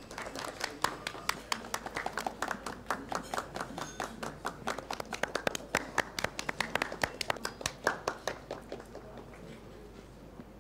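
A small audience applauding by hand, a dense patter of separate claps that thins out and stops about nine seconds in.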